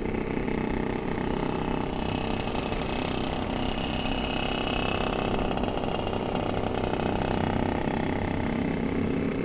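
Yamaha RX-King 135cc two-stroke motorcycle engine running steadily under way, a fast, even buzzing rattle.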